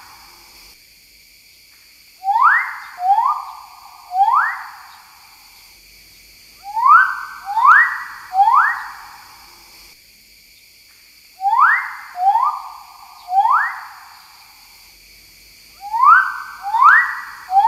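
Magnificent riflebird calling: loud whistled notes, each sweeping sharply up and then holding briefly. The notes come in sets of three, four sets in all, about four to five seconds apart.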